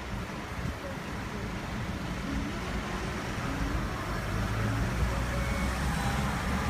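Typhoon wind buffeting the microphone: a steady low rumble with a hiss above it.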